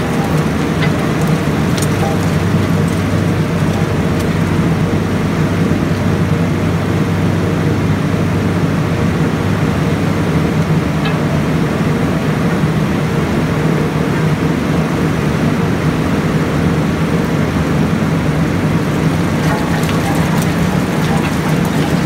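Vecoplan biomass shredder running steadily under load, a loud, even machine drone with a low hum, over the hiss of wood chips dropping out of its discharge.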